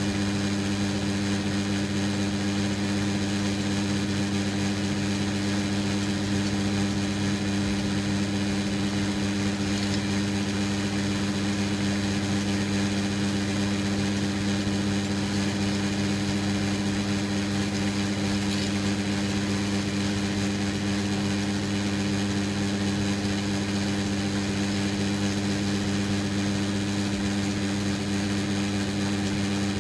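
Metal lathe running steadily with a constant hum, its chuck spinning a pressure-switch outlet fitting while a boring bar bores out the hole.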